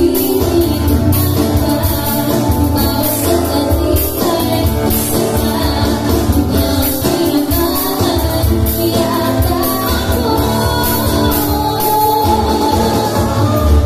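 Live acoustic band music: a woman singing lead with a man singing along, over strummed acoustic guitar and a steady beat played on an electronic percussion pad.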